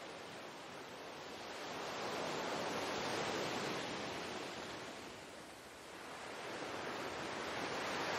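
Ocean surf: a rushing hiss of waves that swells, fades about two-thirds of the way through, and swells again.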